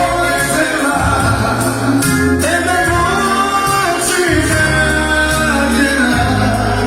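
Romani band playing live: a lead voice singing over electric band backing with a steady bass line.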